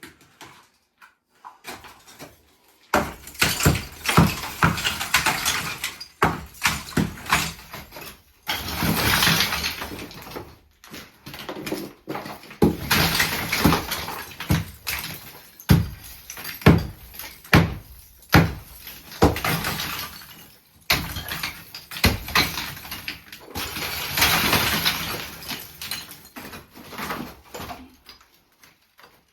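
Demolition work on an old masonry fireplace: irregular knocks and bangs mixed with stretches of scraping and rustling, as pieces are worked loose and moved. It starts a few seconds in and dies away near the end.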